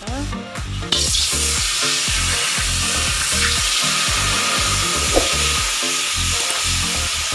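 Coconut milk poured into a hot wok, sizzling steadily from about a second in as it hits the metal. Background music with a steady bass beat plays underneath.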